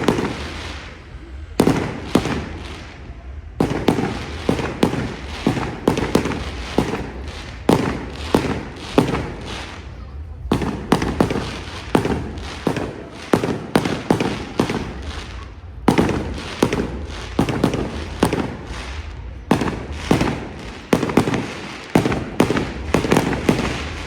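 Fireworks display: a rapid, uneven run of sharp bangs from bursting shells, often several a second, each trailing off in an echo, with a few short lulls, over a steady low rumble.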